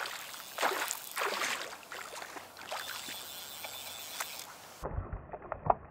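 Hooked trout splashing and thrashing at the water's surface as it is played in close to shore, in irregular wet bursts. Near the end the sound turns duller, with a few short knocks.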